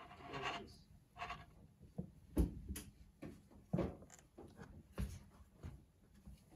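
Handling noise from a camera filter wheel assembly with its off-axis guider and camera attached: scattered clicks and knocks as it is turned over in the hands and set against the wooden bench.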